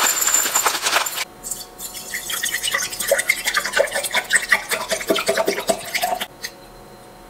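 Drink being poured into a glass mason-jar mug: a dense rattle in the first second, then bottled black bean tea splashing and trickling into the glass, stopping suddenly about six seconds in.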